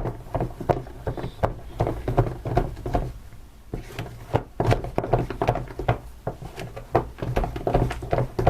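Spoon stirring slime in a bowl, with many short irregular clicks and knocks as it works the mixture. The slime is starting to firm up after borax activator has been added.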